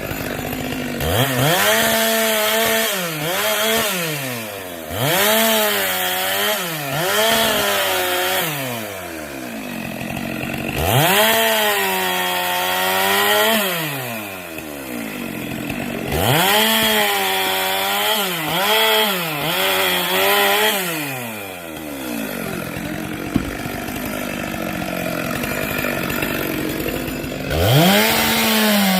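Chainsaw revved up and let back down over and over while cutting wood, with the rasp of the chain in the wood at high revs. Near the end it drops back to idle for a few seconds, then revs up again.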